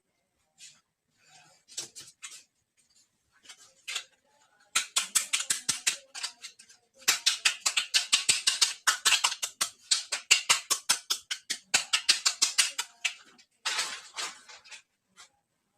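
Quick runs of crisp clicks and scratches, about five a second, from handling small plastic toy pieces and packaging. The longest run comes from about seven to thirteen seconds in.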